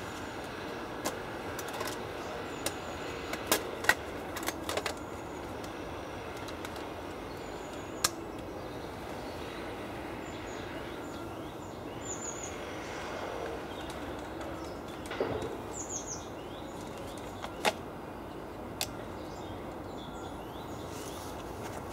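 Woodland ambience: a steady background noise with a few short, high bird chirps, and scattered sharp clicks and knocks from hands working a large-format field camera on its tripod.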